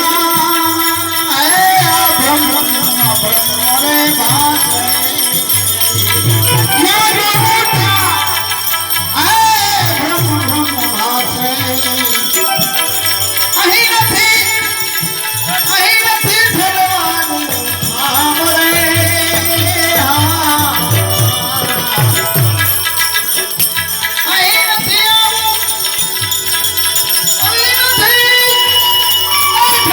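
Indian banjo (benjo) and tabla playing instrumental folk music, the melody moving in sliding, bending notes over a steady beat.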